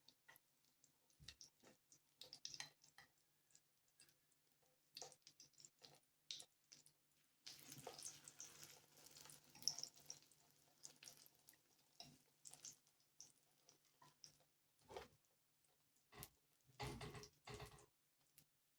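Quiet handling sounds, scattered small clicks and knocks, with water running for about three seconds near the middle.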